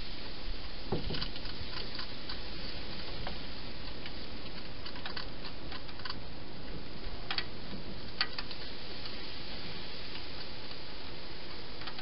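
A hedgehog eating at food bowls inside a plastic feeding box: irregular sharp clicks and crunches in small clusters, the clearest about seven and eight seconds in, over a steady hiss.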